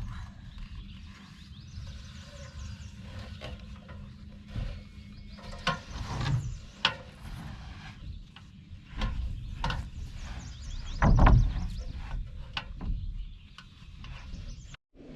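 Irregular knocks and thumps of plywood roof sheathing being pushed and handled on wooden shed rafters, the loudest about eleven seconds in, over a steady low rumble.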